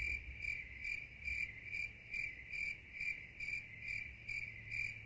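Cricket chirping sound effect: one high chirp repeating evenly about three times a second, over a faint low hum.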